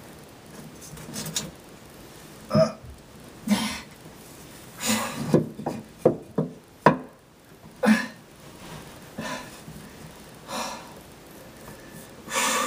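Scattered knocks, bumps and rustling from someone working inside a cramped subwoofer enclosure, fumbling with the wiring to the subwoofer, with a few longer scuffing bursts among them.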